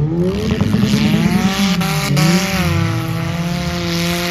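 Demolition derby car engine revving hard: the pitch climbs through the first second, wavers, then holds high and steady. Two sharp knocks come about two seconds in.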